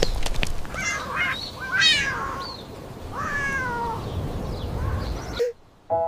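Cat meowing three times: two short rising meows, then a longer meow that falls in pitch. A run of sharp clicks comes just before them.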